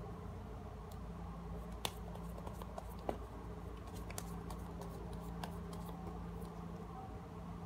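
Tarot cards being handled: sparse light clicks and taps, two sharper ones about two and three seconds in, over a steady low hum.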